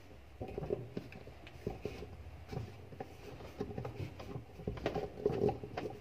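Knife tip scraping and clicking against the plastic bolt cover at the centre of a Sharp washing machine's pulsator as it is pried out of its seat: irregular small clicks and scrapes.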